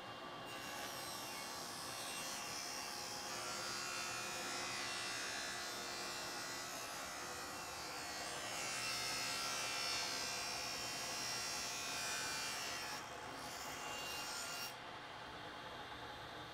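Table saw ripping a wooden board that a power feeder's wheels push through the blade. A steady hissing cut starts about half a second in, swells and eases for roughly fourteen seconds, then stops suddenly as the board clears the blade. The saw and dust collector keep running more quietly afterwards.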